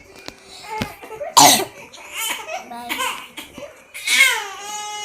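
A person sick with a cold and flu coughing, with one loud cough about a second and a half in and smaller coughs after it, mixed with laughing. Near the end there is a high-pitched, drawn-out voiced sound.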